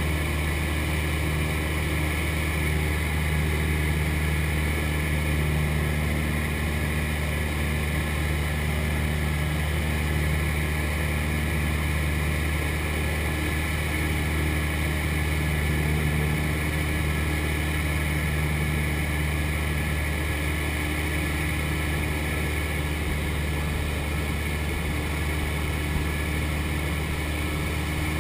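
Cessna 172's piston engine and propeller droning steadily at constant power, heard from inside the cockpit.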